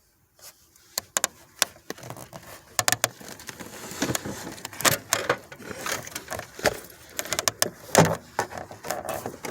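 A run of sharp clicks, rattles and knocks with rustling between them, like keys and a door being handled; it starts about a second in after a brief hush.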